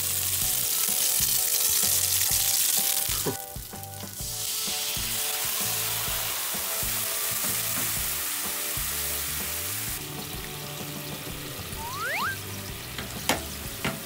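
Yellowtail fillets and leek pieces frying in oil in a non-stick pan, a steady loud sizzle that drops away briefly about three seconds in. After that, teriyaki sauce bubbles and sizzles around the fish, with a couple of sharp utensil clicks near the end.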